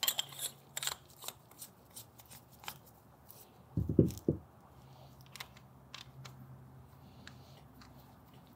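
Small spray foam gun parts being handled and fitted in nitrile-gloved hands, with a quick run of sharp clicks and ticks at first and lighter ticks after. About four seconds in, three dull thumps close together as the gun body is handled on the towel-covered bench.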